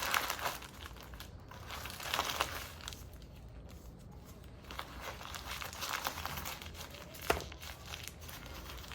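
Packaging crinkling and rustling in irregular bursts as it is handled, with one sharp click about seven seconds in.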